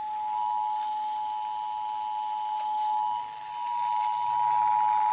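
Emergency Alert System attention signal: two steady tones sounded together, 853 and 960 Hz, held without a break. It announces an EAS alert, here a required monthly test.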